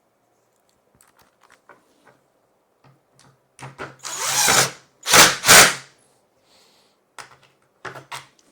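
Power drill running in short bursts, driving the screws that hold the metal casters to a plastic plant caddy: one longer burst about halfway, then two short ones, with light clicks of handling before and after.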